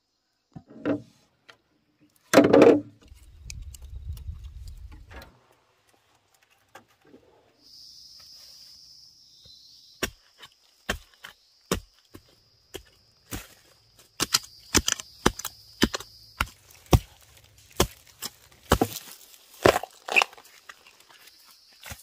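A blade chopping into bamboo: a run of sharp cracking strikes begins about ten seconds in and comes one to two a second, at uneven strength. A steady high-pitched drone runs underneath.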